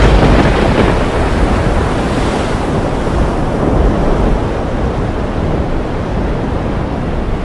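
Loud, steady rushing noise with a deep rumble underneath, starting abruptly.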